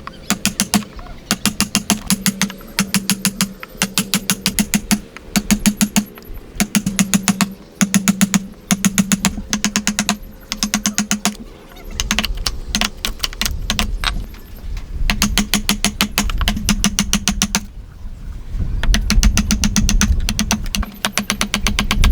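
Hand saw cutting wood in quick back-and-forth strokes, each stroke a rapid run of clicks from the teeth, with a short pause near the end.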